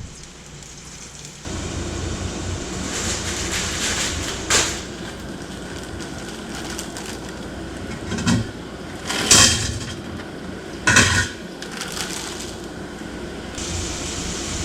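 Chicken wings frying in sesame oil in a pan, a steady sizzle that sets in about a second and a half in, with four or five sharp knocks of a utensil or lid against the cookware.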